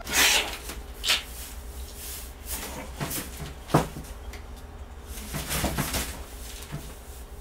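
Large cardboard boxes being shifted and handled: several sharp knocks in the first four seconds, then a cluster of scraping and rustling from about five to six seconds in.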